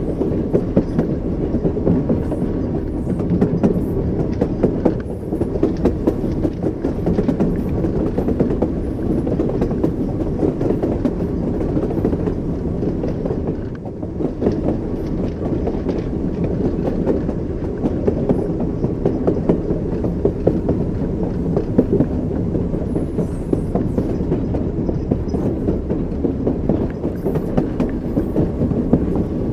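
Train wheels rumbling and clacking over rail joints, a steady low running rumble with repeated clicks.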